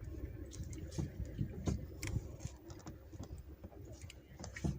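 Scattered light clicks and knocks of things being handled, as a bag is moved aside and a storage compartment on a boat is opened.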